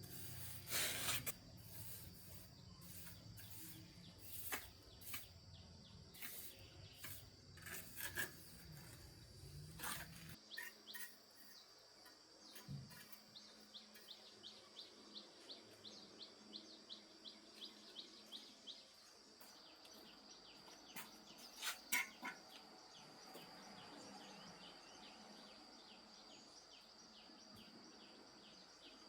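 Faint outdoor ambience: short bird chirps repeating, at times about two a second, over a steady thin high whine. A low hum underneath cuts off about ten seconds in.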